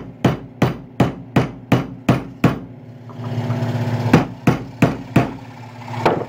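A hammer striking a flathead screwdriver used as a punch, driving a metal wedge down into the top of a walnut hammer handle: quick even blows about three a second, a pause of over a second, then four more blows and one last one near the end.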